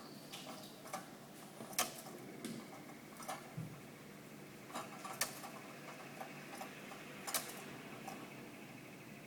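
Faint, irregular small clicks and taps, about one every second or so, from a pet canary moving about in its cage.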